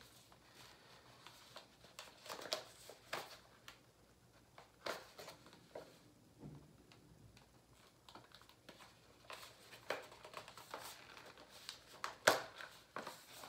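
Small cardboard box of a chocolate bar handled and opened, with paper or foil crinkling as the packaging is worked: scattered rustles and taps, the sharpest about twelve seconds in.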